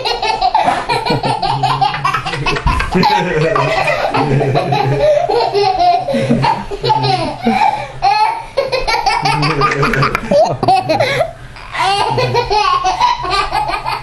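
A little boy laughing hysterically, in long unbroken runs of laughter with a short pause about eleven seconds in.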